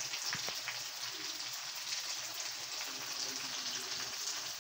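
Pork and potatoes in caldereta sauce sizzling steadily in a wok.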